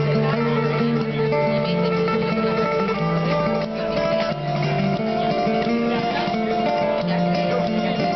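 Background music: acoustic guitar playing a flamenco-style piece with a steady bass line.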